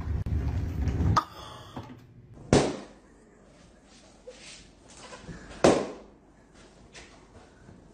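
A low rumbling noise that cuts off abruptly about a second in, then two sharp bangs about three seconds apart, each dying away quickly.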